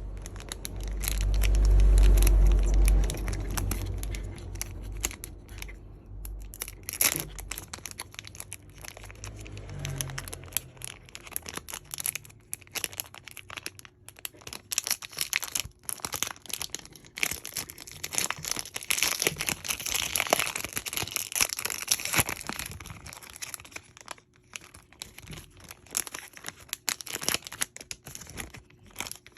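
Foil trading-card pack wrappers crinkling and tearing as packs are ripped open, full of sharp crackles, with a loud low rumble of handling in the first few seconds.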